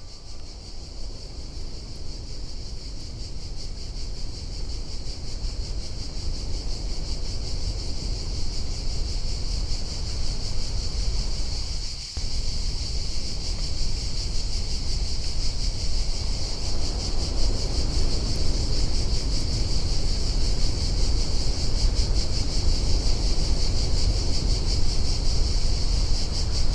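Outdoor ambience: wind rumbling on the microphone under a steady high-pitched hiss, growing slowly louder, with a brief break about twelve seconds in.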